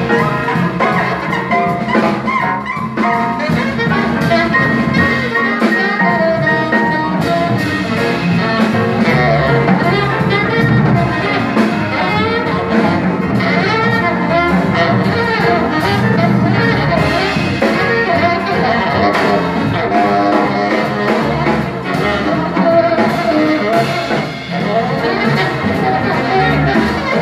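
A small jazz band playing live: a saxophone carries the melody over piano and double bass.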